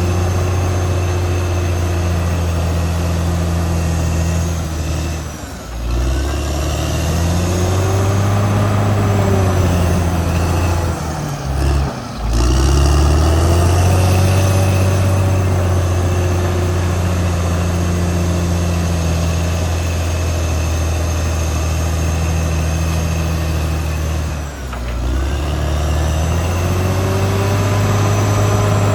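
Caterpillar D6R XL bulldozer's diesel engine running hard under load. Its pitch and loudness sag briefly three times and pick back up each time.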